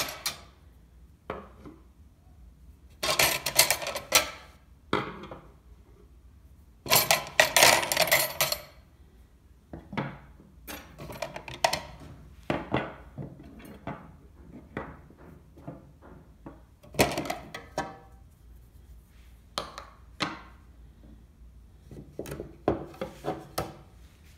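Steel hand-mixer attachments (wire whisk, beaters and dough hooks) being handled and set down on a wooden tabletop: metal clinking and rattling against wood in scattered bursts, the longest about 3 and 7 seconds in, followed by many shorter knocks.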